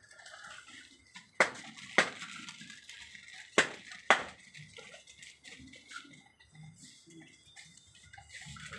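Four sharp knocks in two pairs, about half a second apart within each pair, over faint background noise.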